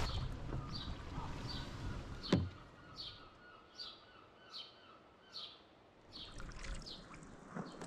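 A songbird repeating a short, high, falling chirp about every three-quarters of a second, over a faint steady background. A single sharp knock sounds about two seconds in.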